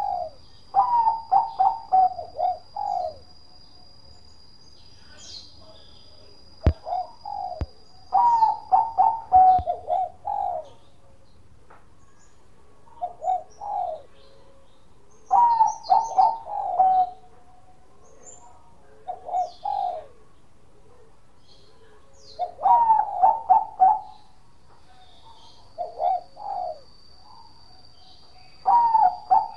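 Bangkok-type zebra dove (perkutut) singing its cooing song: phrases of quick, clipped coo notes, one phrase every three or four seconds, with longer and shorter phrases alternating.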